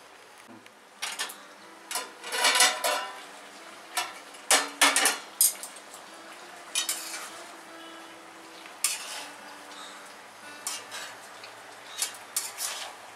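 A metal spatula scraping and clanking against the inside of a metal cooking pot as a thick chicken curry masala is stirred, in irregular strokes every second or two, over a faint sizzle of the frying food.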